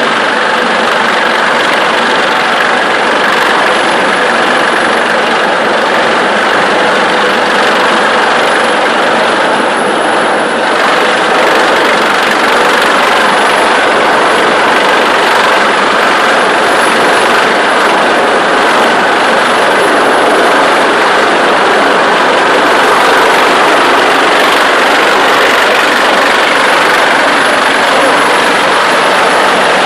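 Search-and-rescue helicopter hovering low overhead, its rotor and turbines making a loud, steady noise that grows a little louder partway through.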